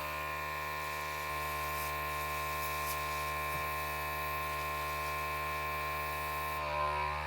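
Small electric blower motor running steadily, a whining hum with a rush of blown air, used to push poured acrylic paint across a canvas; the airy part drops away about six and a half seconds in while the hum goes on.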